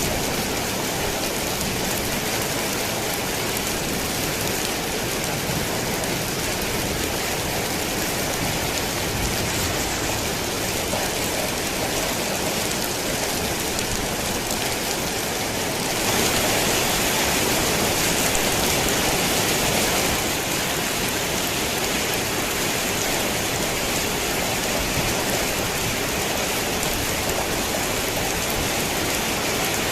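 Steady rain falling on a tin roof, an even dense patter. About halfway through it grows heavier and louder for a few seconds, then settles back.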